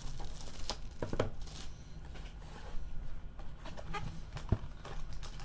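Gloved hands handling trading-card boxes and foil packs on a table: scattered light clicks, taps and rustles.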